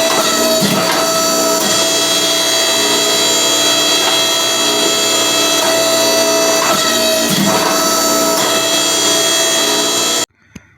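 Hydraulic forging press running with a steady whine and a few knocks as the flat dies work the hot hammer head. The sound cuts off abruptly near the end.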